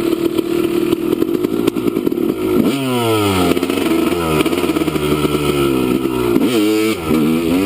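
Dirt bike engine running, then revved up sharply about a third of the way in and again near the end, the pitch sliding down after each rev as the bike pulls away.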